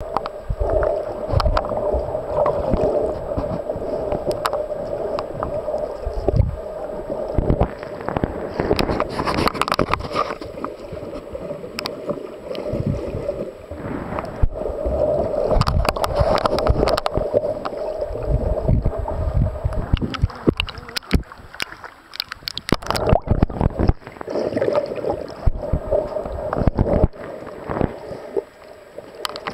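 Water sloshing and gurgling around a camera taken underwater, with frequent sharp clicks.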